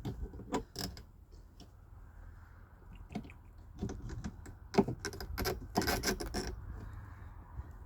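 A metal hand tool working old nails out of a wooden board: a few scattered metallic clicks, then a quick run of clinking and scraping about five to six and a half seconds in.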